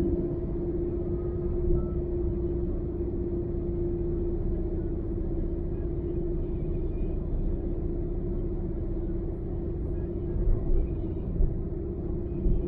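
Car cruising on a highway: a steady engine drone over low road rumble, with a few short bumps near the end.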